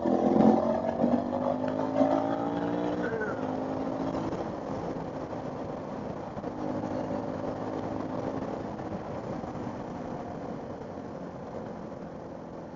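Motorcycle engine accelerating: its pitch climbs for about three seconds, drops at a gear change, then runs steadier and quieter in the higher gear.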